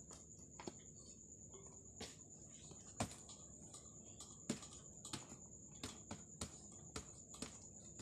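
Faint, irregular sharp taps and clicks, about nine in all, as green parakeets peck at food in a dish, over a steady high-pitched whine.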